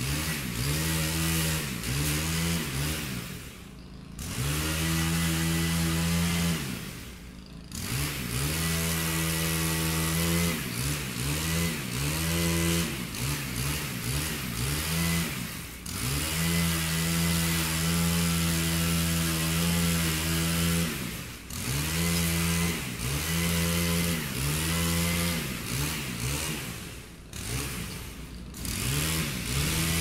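Chainsaw running at high speed, its pitch sagging and recovering every few seconds, with several deeper dips where it briefly slows and quietens.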